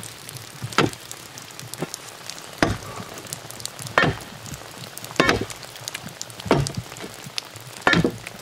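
Hammer blows on steel set against a large rock, six sharp metallic strikes about every second and a half, some ringing briefly, as the boulder is being broken apart.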